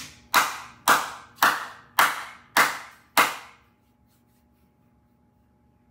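One person clapping hands slowly and evenly, about seven claps roughly half a second apart, each ringing out briefly. The clapping stops about three and a half seconds in.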